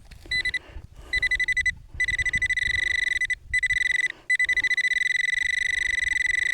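Handheld metal-detecting pinpointer beeping: quick pulsed chirps, then a near-continuous high buzzing tone that breaks off twice before running on, which signals that the probe tip is right against a metal target in the dug soil.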